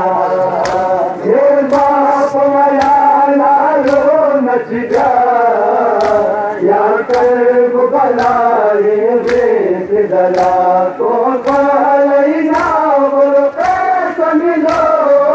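A male voice chanting a noha, a Shia mourning lament, in a slow steady rhythm, with sharp strikes about once a second keeping time: matam, the hand-beating on the chest of the mourners.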